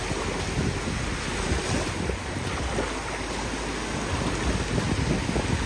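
Ocean surf washing onto a beach, with wind buffeting the microphone in a steady, rumbling rush.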